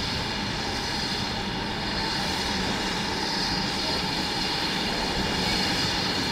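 A train running on the line: a steady rumble with rail noise, even in level throughout.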